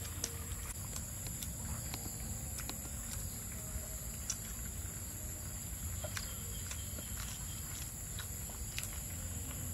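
Scattered small crunches and clicks of crispy fried chicken being bitten, chewed and pulled apart by hand, over a steady high-pitched chorus of evening insects and a low background rumble.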